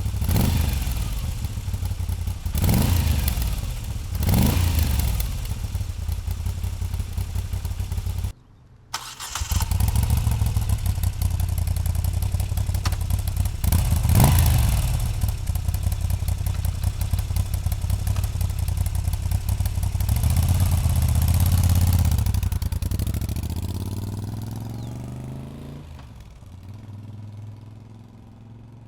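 2021 Moto Guzzi V7 850's air-cooled V-twin running through an aftermarket Mistral exhaust, with three quick throttle blips in the first five seconds and another about fourteen seconds in. There is a brief break about eight seconds in. Near the end the engine note climbs in pitch while fading away.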